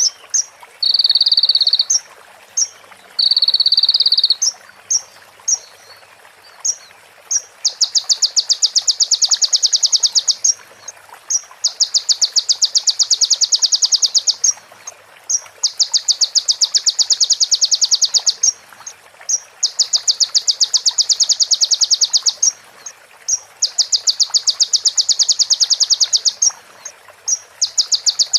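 A kolibri ninja (sunbird) singing mimicked female prenjak (prinia) chatter: a few short high chirps, then, from about a quarter of the way in, long, very rapid trills of two to three seconds each, repeated over and over with short gaps between them.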